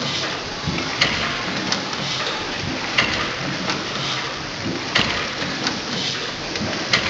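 Stationary steam engine running slowly: a steady hiss, with a sharp click from the valve gear about every two seconds and lighter clicks in between.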